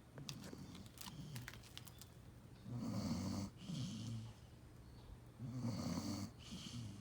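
Dog snoring in its sleep, with slow breaths in and out. Two louder snores come about three and five and a half seconds in, and a few soft clicks fall in the first two seconds.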